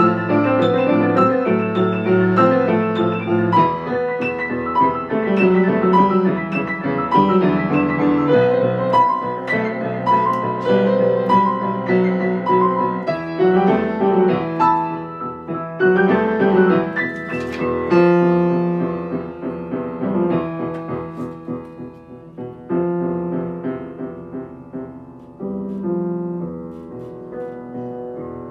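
Solo piano playing a beginner student piece, with a steady run of notes. The playing is loud in the first half and softer from about two-thirds of the way in.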